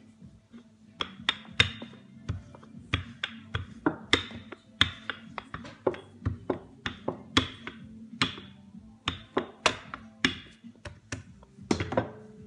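Wooden rolling pin working soft bread dough on a wooden worktop: a run of sharp wooden clicks and knocks, about two or three a second, with a louder knock near the end as the pin is set down.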